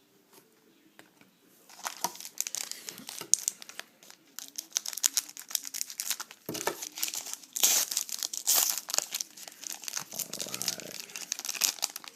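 A trading-card pack wrapper being crinkled and torn open by hand. The crackling rustle starts about two seconds in and carries on, in a rapid run of small sharp crackles.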